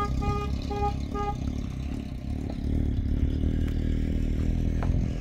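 A motor vehicle's engine running with a steady low rumble, while its horn toots in short, evenly spaced beeps about twice a second for the first second or so. After that the engine runs on alone.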